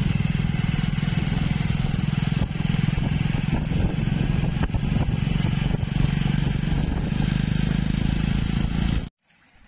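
Motorcycle engine running at a steady cruising speed while riding, heard from the pillion seat. The sound stops abruptly near the end.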